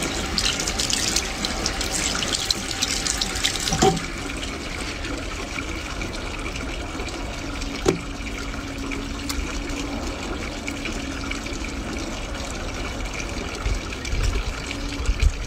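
Tap water running steadily into a sink, with busier splashing in the first few seconds as a baby monkey is washed and lathered with soap.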